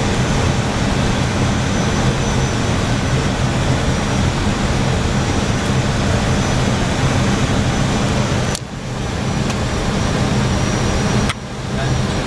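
Steady flight-deck noise of an Airbus A319-112 on approach: rushing airflow over a low steady hum. Twice in the second half the noise drops briefly, each time with a sharp click.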